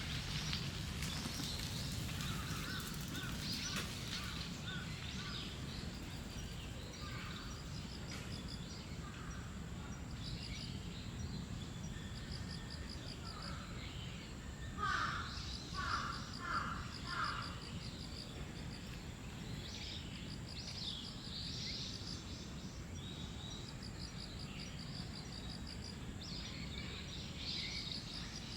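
Park bird ambience: small birds chirp on and off throughout, and a crow caws four times in quick succession around the middle. A steady low background rumble and a faint, repeated high pulsing trill run underneath.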